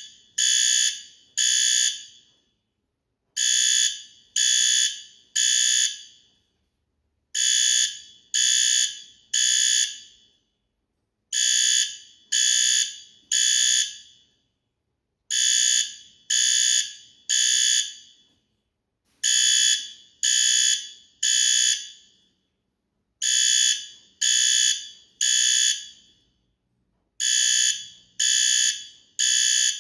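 Fire alarm horn sounding the temporal-three evacuation pattern: three short, high-pitched blasts, then a pause, repeating about every four seconds.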